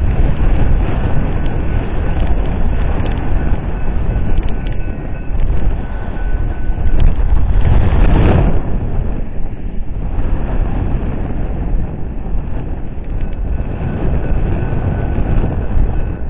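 Freight train's hopper cars rolling away along the track, a steady rumbling noise that swells briefly about eight seconds in.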